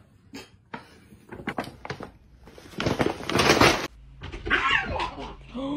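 A cat's voice: short pitched calls that bend up and down, near the end. Before them come scattered clicks and a loud, noisy rustle lasting under a second.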